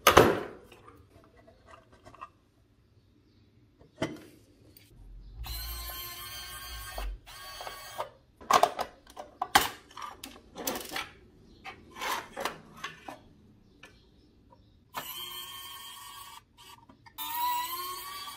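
Small cordless electric screwdriver whirring in three short runs as it drives screws into a toy truck's cab, between clicks and knocks of small parts being handled. A sharp click right at the start is the loudest sound.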